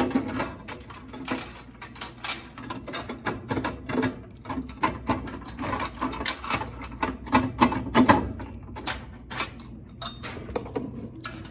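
Laundromat quarters clinking and rattling as they are collected and handled, a dense run of irregular metallic clicks, over a low steady hum.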